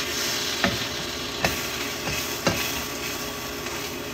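A utensil smashing a grilled cheese sandwich down in a hot buttered frying pan, making three sharp knocks, over the steady sizzle of the frying.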